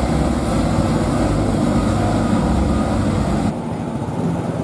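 Tour bus diesel engine running close by, a loud, steady low rumble. About three and a half seconds in the sound cuts off abruptly to a quieter, steady engine hum.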